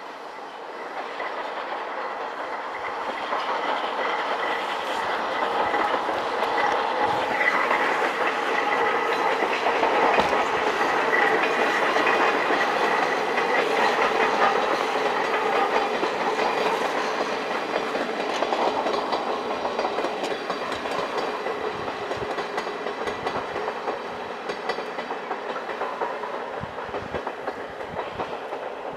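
Steam train hauled by JNR Class C11 tank locomotive C11 171 passing under steam with its coaches. The sound builds to its loudest about ten to fifteen seconds in, then slowly fades as the train moves away.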